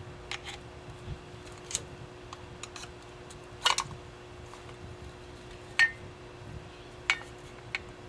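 Sharp metal clicks and clinks of a screwdriver working on a pool pump motor's capacitor cover, about six scattered taps over a faint steady hum.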